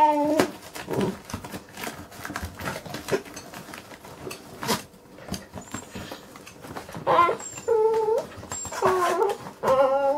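Small dog whining, impatient to get into a cardboard delivery box: one whine at the start, then a run of four high, drawn-out whines in the last three seconds. Scattered scratchy clicks of teeth and paws on the cardboard run throughout.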